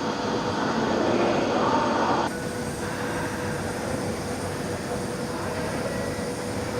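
Salvagnini fiber laser cutting machine running: a steady machine noise that drops abruptly in level a little over two seconds in, with a faint steady hum after that.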